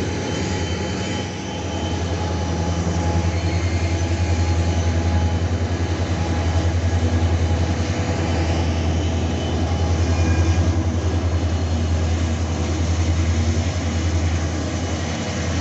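Freight train passing, with the rumble of loaded wagons, then the two EMD SD40 diesel locomotives at the tail going by under power as rear-end helpers pushing the heavy train. Their two-stroke diesels give a loud low drone with a fast pulsing beat that swells as they pass.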